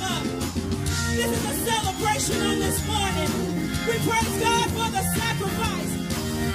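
Live gospel music: a woman sings lead into a microphone over a church band with organ, keyboards and a steady beat.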